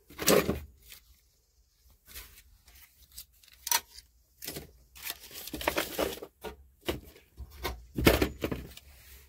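Hands rummaging in and brushing off an old truck's open metal glove-box door: irregular rustling, scraping and light knocks. The loudest come just after the start and again around eight seconds.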